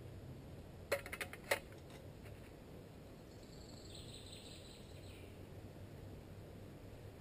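A quick cluster of sharp clicks or clinks about a second in, then faint high bird chirps around four seconds, over a low steady background.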